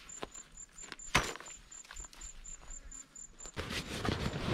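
A folding camp chair being handled and set up: small knocks and clicks, with one sharp click about a second in. A faint high chirp repeats about four times a second behind it. Near the end this gives way to louder rustling of canvas and bedding being handled.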